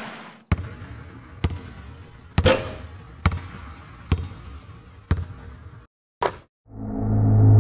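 A basketball bouncing on an asphalt court, about once a second for six bounces, then one more bounce after a short pause. A steady low hum fades in near the end.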